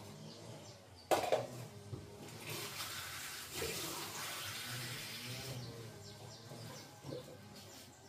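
A sharp knock about a second in, then a kitchen tap running for about three seconds as water is drawn into a cup.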